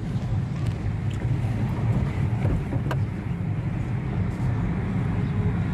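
A vehicle running: a steady low engine and road rumble with some wind noise.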